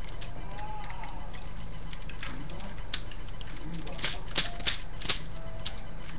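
Hard plastic parts of a Transformers Revenge of the Fallen Optimus Prime action figure clicking and rattling as its legs are flipped down and transformed. A few scattered clicks come first, then a quick cluster of sharp clicks about four to five seconds in.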